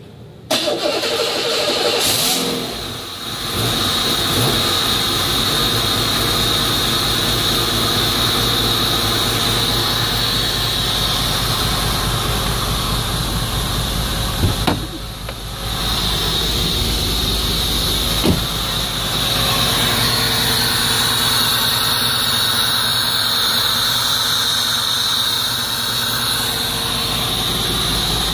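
Chevy 4.3-litre engine swapped into a Land Rover Discovery II, cranking and catching about half a second in, then running steadily at idle, with short dips in level around three and fifteen seconds in. It is the first fire-up of the swapped engine, run with no coolant in it.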